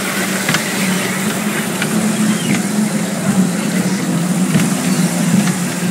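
Miniature amusement-park train running, heard from one of its passenger cars: a steady low motor drone with a few faint clicks.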